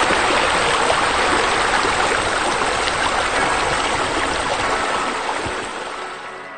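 Running water, a steady rush like a stream or waterfall, fading over the last second or two.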